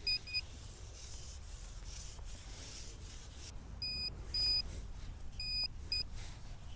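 Metal detector beeping its target tone in short, steady high-pitched beeps: a quick triple at first, then single and paired beeps from about four seconds in, as the coil passes over a buried coin. A scraping, rustling noise runs between the beeps.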